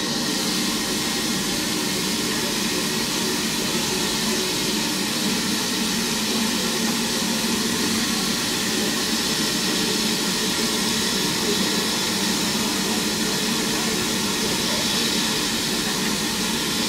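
Steam locomotive standing at the head of its train, giving off a steady, loud hiss of escaping steam with no chuffing.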